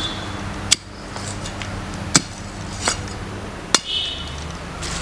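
Iron digging bar driven into stony red soil, striking four times with sharp metallic clinks at irregular spacing of about a second, digging a post hole.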